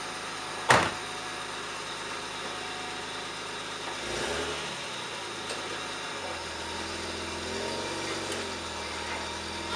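Nissan R31 Skyline's engine running at idle, with one sharp knock about a second in. Around four seconds in the engine note shifts, then settles into a steady low idle.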